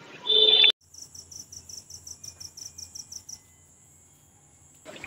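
Crickets chirping in a quick pulsing rhythm, about four chirps a second, over a steady high trill; the chirping stops about three seconds in and the trill near the end. Just before the chirping, a brief loud ringing sound that cuts off sharply.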